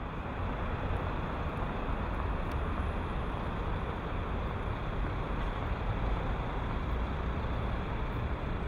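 Steady city street traffic noise: a continuous low rumble and hiss with no single vehicle standing out.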